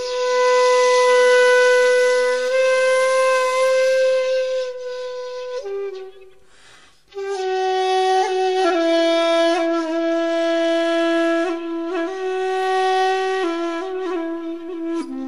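Flute music of slow, long-held notes, with a short break about six seconds in before the melody resumes, moving in small steps between notes.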